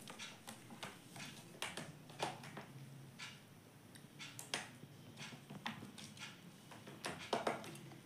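Indian ringneck parrot making irregular light taps and clicks as it moves about in front of a mirror on a wooden board, with a louder run of clicks about seven seconds in.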